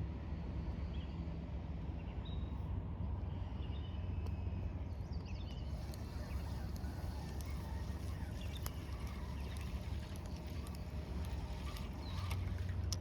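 Outdoor lakeside ambience: a steady low rumble with faint, scattered bird chirps and a few light clicks.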